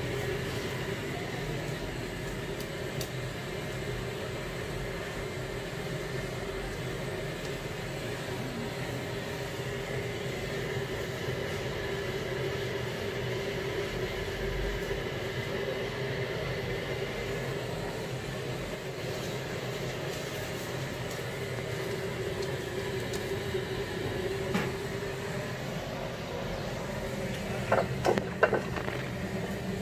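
A steady mechanical hum runs throughout. Near the end there are a few sharp metal knocks as a steel block is handled on a tube-patching press.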